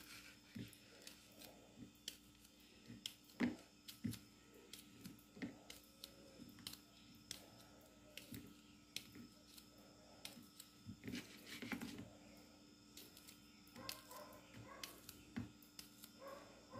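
Faint, irregular soft clicks and taps of a small knife slicing smoked calabresa sausage held in the hand, the pieces dropping into a plastic bowl.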